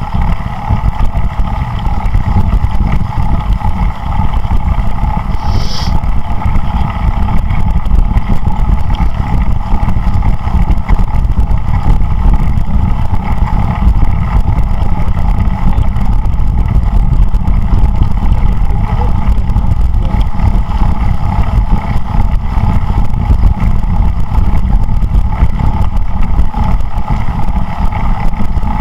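Wind buffeting the microphone of a camera riding along on a moving bicycle, a loud continuous rumble with a steady hum beneath it. A brief high-pitched sound cuts through about six seconds in.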